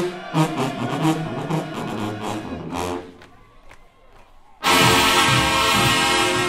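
Marching band brass and percussion playing, breaking off about three seconds in, then a loud held brass chord near the end.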